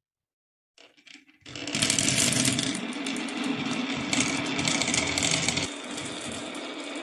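Marbles rolling and clattering down a marble run track: a few faint clicks, then a sudden start about a second and a half in of a dense, continuous rattle of many small clicks.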